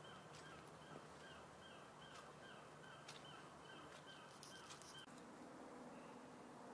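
Near silence in woodland, with a faint short falling chirp repeating about twice a second that stops about five seconds in, and a few faint clicks.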